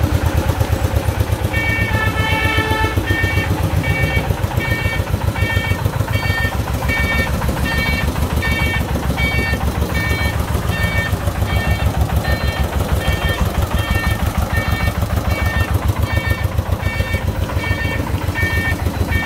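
Single-cylinder diesel engine of a sand-laden công nông farm truck running with a steady rapid thump while the truck backs up. From about a second and a half in, an electronic beep repeats about one and a half times a second, typical of a reversing alarm.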